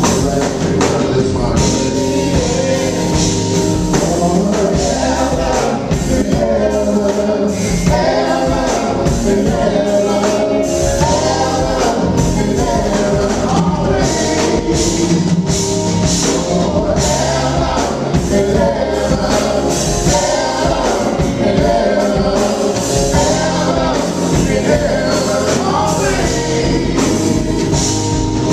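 Live funk band playing a slow R&B song, with bass, drums and sung vocals.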